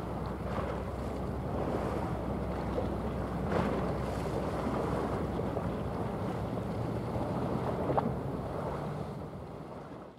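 Wind buffeting the microphone over sea waves washing, with a steady low rumble beneath and a couple of brief knocks; the sound fades out near the end.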